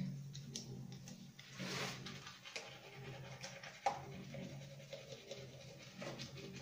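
Toothbrush scrubbing teeth: irregular scratchy brushing strokes, with a short hiss a little under two seconds in and a sharp click near four seconds, over a steady low hum.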